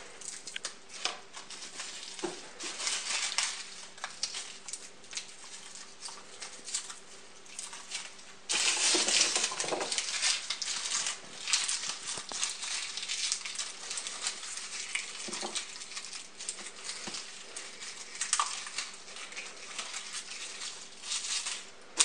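Dry, papery garlic skins crackling and rustling as cloves are pulled from the bulb and peeled by hand, with small taps of cloves on a plastic cutting board. The rustling is loudest for a moment about nine seconds in.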